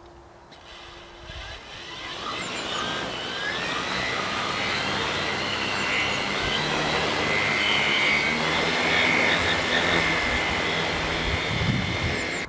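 A tricopter's three brushless electric motors and propellers spin up and run at flight throttle as it lifts off, with a high whine that wavers slightly in pitch as the throttle changes. The sound cuts off suddenly at the end.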